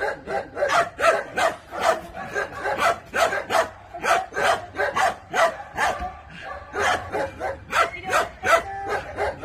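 A dog barking over and over in short, rapid barks, about three a second. It is excited, straining on its leash toward a cat.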